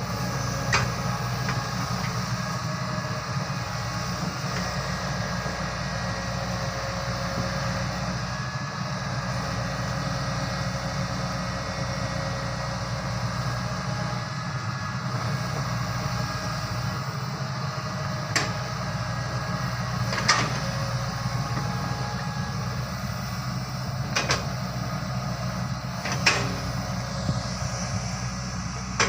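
Excavator engine running steadily, with a few short sharp knocks about 1, 18, 20, 24 and 26 seconds in.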